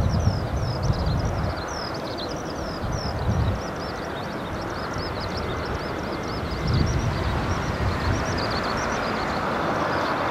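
Airbus A320-214 jet on final approach, its engine sound a distant steady rush that grows louder toward the end as it nears. Small birds chirp continuously and high over it, and wind rumbles on the microphone at moments.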